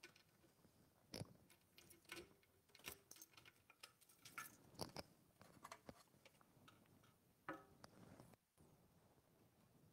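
Near silence: quiet room tone broken by faint scattered clicks and soft knocks.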